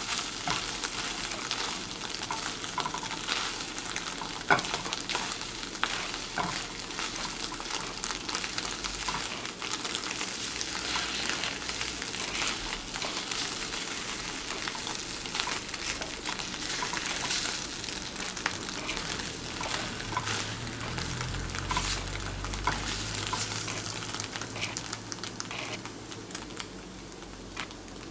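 Eggs frying in hot oil: a steady sizzle with scattered crackles and pops.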